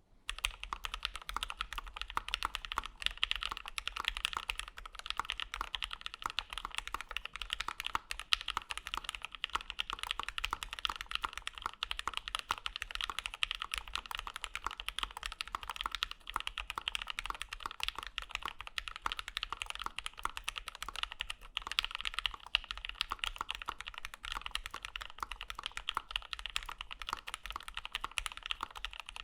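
Fast, continuous typing on a custom mechanical keyboard with lubed Gateron Black Ink linear switches in an O-ring mounted aluminium half plate, inside a Kei prototype aluminium case with CRP keycaps.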